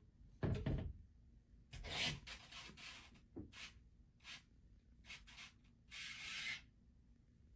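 A puppy's paws scratching and rubbing at a mirror and the skirting board below it: a string of short, faint scratches, the longest about six seconds in.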